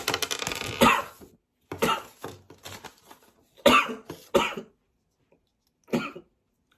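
A person coughing: about four short coughs spaced out with pauses between them.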